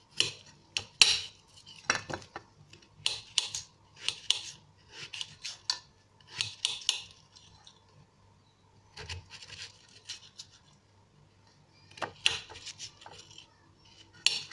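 A kitchen knife slicing a raw potato into strips on a ceramic plate: runs of crisp cuts with the blade clicking and scraping on the plate, with a couple of short pauses between runs.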